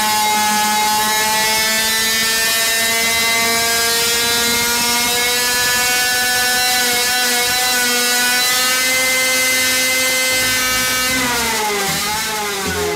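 Supercharged 50cc two-stroke engine running at high revs under load on a dyno, around 13,000 to 15,000 rpm, its pitch creeping slowly upward. About eleven seconds in the pitch falls away as the revs drop.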